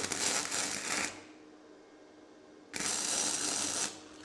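Flux-core arc welder laying two short tack welds, each about a second of crackling arc with a pause between. The tacks are stacked to fill a blown-through hole in thin-wall 1/16-inch tube.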